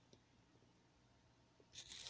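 Near silence: room tone, with a faint rustle starting near the end.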